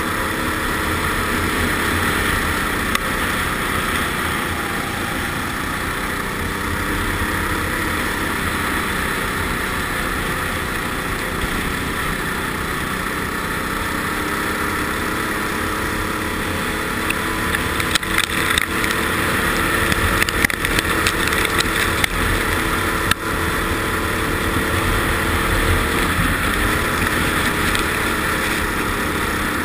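Ice kart engine running at speed, heard from a camera mounted on the kart, with a steady rush of wind and noise. A run of sharp clicks and knocks comes about two-thirds of the way through.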